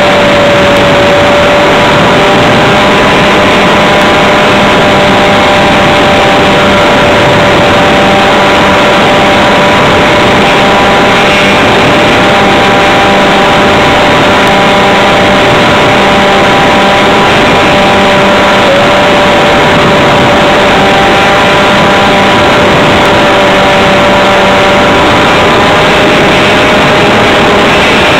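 RC model airplane's motor running steadily at a near-constant high pitch, very loud and close as heard from the camera on board the plane in flight, with one brief wobble in pitch about two-thirds of the way through.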